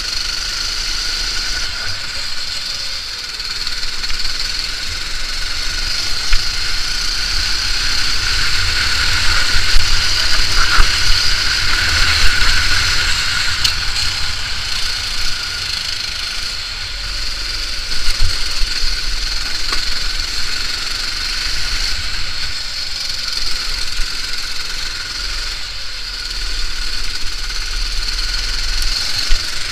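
Go-kart engine running continuously at racing speed, heard from the kart's own onboard camera, with wind rumble and hiss on the microphone.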